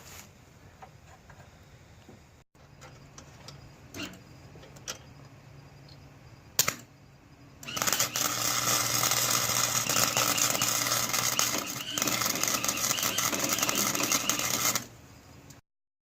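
Electric arc welding on bed-frame angle iron: a low steady hum with a few clicks, then about eight seconds in a loud, dense crackling starts, runs for about seven seconds and stops abruptly.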